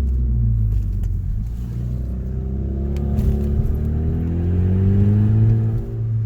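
Hyundai Veloster Turbo's 1.6-litre turbocharged four-cylinder accelerating through a gear, its exhaust with the muffler deleted climbing steadily in pitch from about three seconds in, with a dip in level right at the end.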